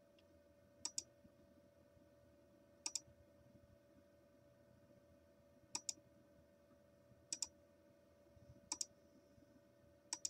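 Computer mouse button clicking six times, a second or two apart, each click a quick press-and-release pair, as points are placed one by one along an outline. A faint steady hum runs underneath.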